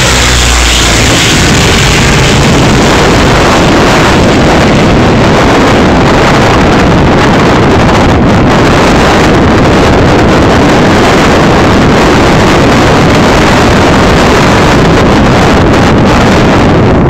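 Loud, steady wind buffeting on the microphone, with a motorboat running underneath it. In the first couple of seconds the engine drone of a water bomber passing low overhead fades out.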